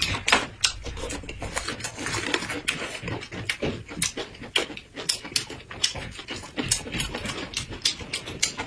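Close-miked chewing of thin Chinese pancake (jianbing) wraps rolled around raw greens, with many quick, crisp crunches and wet mouth clicks following one another unevenly.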